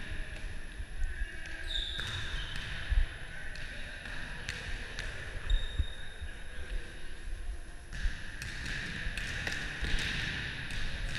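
A volleyball being hit and bouncing on a sports-hall floor: scattered thuds at irregular intervals, the loudest about three seconds in and again past five seconds, with more frequent light knocks near the end.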